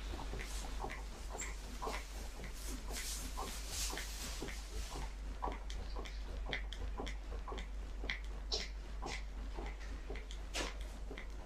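Chest compressions on a CPR training manikin: a steady train of short clicks and knocks at about two a second, with rustling over the first few seconds.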